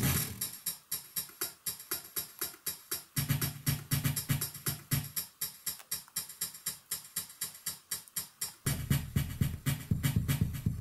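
Homemade aleatoric (chance-driven) drum machine playing an electronic beat of short clicky hits, about three a second. A low drum part joins about three seconds in, drops out two seconds later, and comes back thick and busy near the end.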